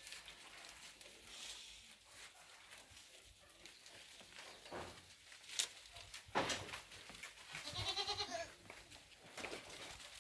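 A goat bleating once, a single wavering call about eight seconds in, shortly after two sharp knocks.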